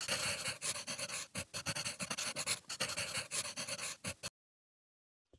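A pen scratching on paper in quick, uneven strokes for about four seconds, stopping abruptly; a faint click near the end.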